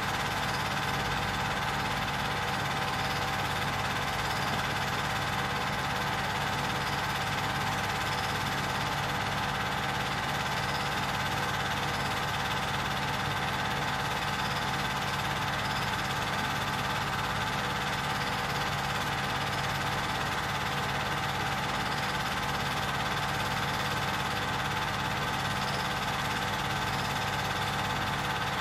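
Film projector running steadily: a constant mechanical whirr and hum that holds unchanged throughout.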